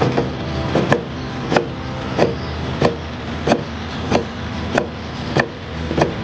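Chinese cleaver slicing cured pork belly on a wooden chopping board: the blade knocks through the meat onto the board in a steady rhythm, about one stroke every two-thirds of a second, some ten strokes in all.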